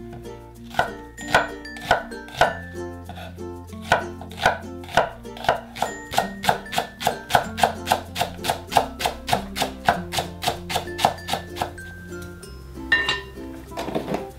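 Kitchen knife chopping on a cutting board in a steady run of sharp strokes that quickens to about four a second, over light background music.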